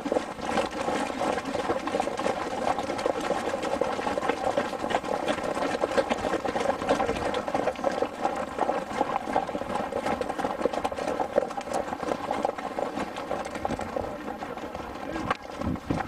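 Hooves of running horses clattering on dry dirt: a dense, steady drumming of many quick strikes.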